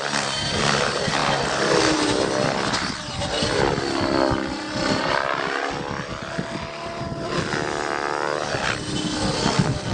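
Radio-controlled aerobatic helicopter flying: its rotor and motor whine swings up and down in pitch as it swoops about and passes close by.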